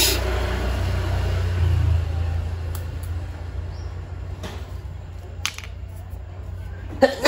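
A vehicle passes by with a low rumble that fades after about two and a half seconds, under light clicks and knocks from a small plastic circuit breaker being handled. There is a louder knock near the end.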